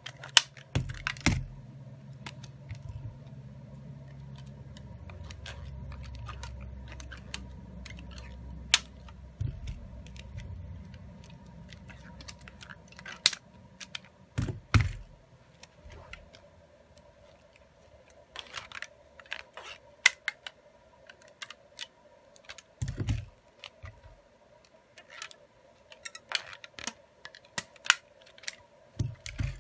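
Rubber bands being stretched and snapped around a smartphone to clamp a newly fitted replacement screen in place, with irregular sharp clicks and taps of the bands and fingers against the glass and the silicone mat. A low muffled rumble of handling runs through the first few seconds.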